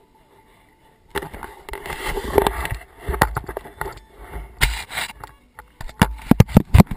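Handling noise from a GoPro camera being moved and set in place: close rubbing and scraping against the mic, then a quick run of sharp knocks and clicks near the end.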